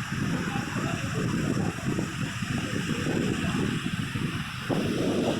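Sea surf washing steadily onto the beach, a continuous rushing hiss, with irregular low rumble from wind on the microphone.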